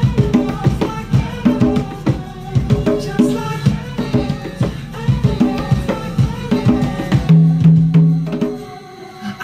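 A pair of conga drums played by hand in a tropical Latin rhythm, along with a recorded pop song playing from a TV. The playing thins out and drops in level near the end.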